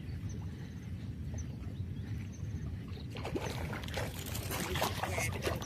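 Small fishing boat under way: a steady low rumble, with water sloshing and splashing against the hull from about halfway through.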